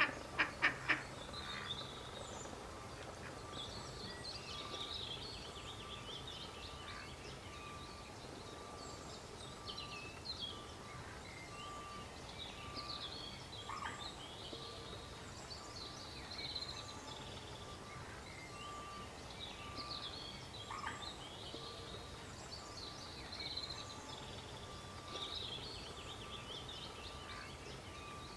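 Ducklings peeping in short, high calls throughout, after a duck quacks a few times in quick succession right at the start.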